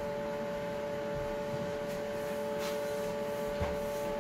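Cloth towel rubbing over the chrome rails of a heated towel radiator as it is polished, over a steady background hum, with a light knock near the end.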